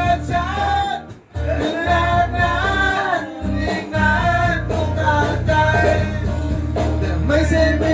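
Song with a singing voice over guitar and a steady bass beat, dipping briefly about a second in.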